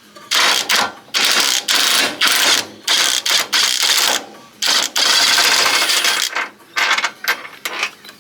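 Power wrench on the Range Rover running in a string of short bursts, a rattling whirr each time, undoing bolts one after another. The bursts stop about six and a half seconds in.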